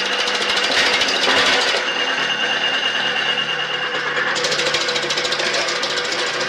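A machine running steadily with a fast, even rattle and a steady whine.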